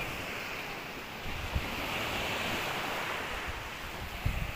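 Rough sea surf washing onto the shore in a steady rush. Wind buffets the microphone with low thumps about a second and a half in and again near the end.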